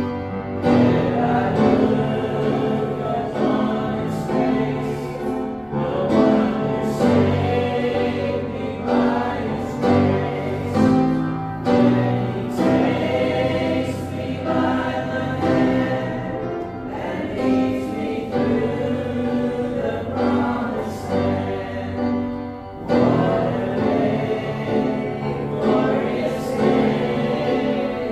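Several voices singing a gospel hymn together with instrumental accompaniment.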